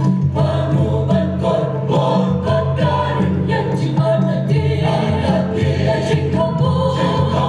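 Mixed church choir of women's and men's voices singing together in parts, with long held notes over a steady low bass line.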